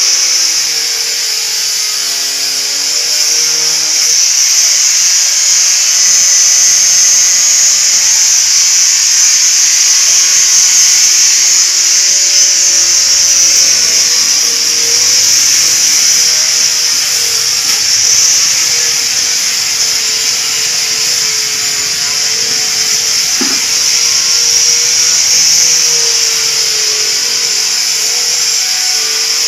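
Handheld electric polisher with an orange pad running against plywood shelving, a steady high-pitched whine and hiss. The motor's pitch sags and recovers again and again as the pad is pressed on and eased off.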